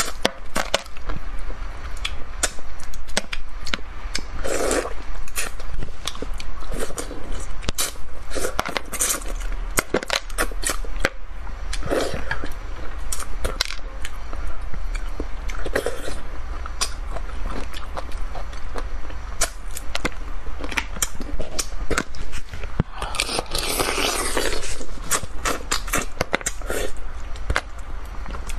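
Close-up mouth sounds of a person eating spicy braised fish: chewing, sucking and slurping, with many small wet clicks and smacks and a longer slurping stretch near the end.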